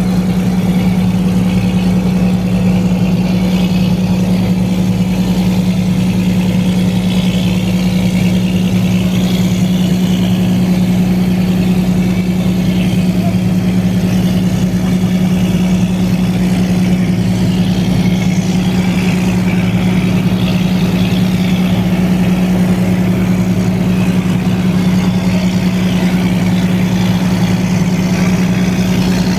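An engine running at a steady speed: a constant low drone that does not change.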